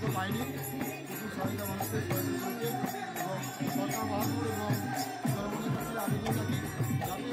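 Music: singing over jingling, evenly struck hand percussion, in the manner of devotional folk song.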